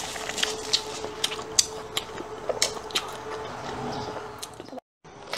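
Paper tissue rustling and crinkling as it wipes a mouth, picked up close by a clip-on microphone, with small irregular clicks throughout over a faint steady hum. The sound drops out briefly near the end.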